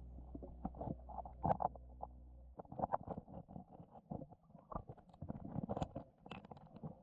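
Muffled underwater gurgling from a submerged camera, broken by irregular clicks and knocks as fingers and snail shells touch the algae-covered rock. There is a steady low hum for the first couple of seconds that then stops.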